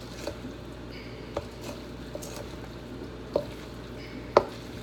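A utensil mixing a thick, creamy potato salad in a bowl: soft squishing with four short knocks against the bowl, the loudest near the end.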